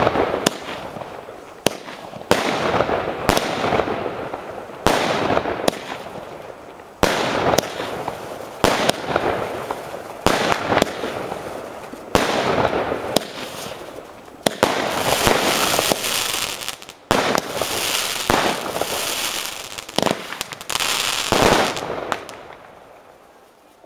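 Panda Feuerwerk 'Timeout' firework battery firing shot after shot: a sharp bang every one to two seconds, each followed by a spell of crackle. From about halfway through, the shots bring louder hissing crackle, and the salvo dies away near the end.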